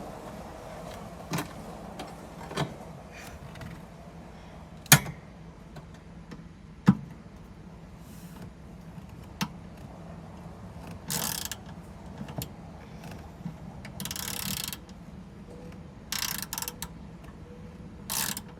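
Hands-on work with parts and tools inside a car's interior: scattered clicks and knocks, two sharper knocks about five and seven seconds in, and several short scraping bursts later on, over a steady low hum.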